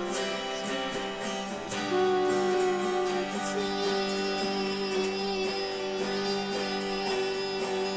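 Live band music: acoustic guitar strumming along with other instruments, over a steady low drone, with one long held note from about three and a half seconds in.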